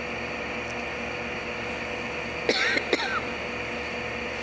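Steady mechanical hum of ventilation or machinery with a faint fixed tone, broken about two and a half seconds in by a person's short double cough.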